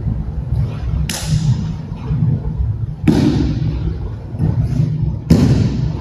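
Sharp slaps and thuds of an aikido partner being thrown and hitting the mat in breakfalls: three loud impacts about two seconds apart, echoing in the hall, over a steady low hum.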